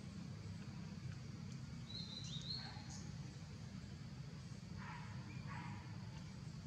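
Outdoor ambience: a steady low rumble, with a short high chirp about two seconds in and two brief calls about five seconds in.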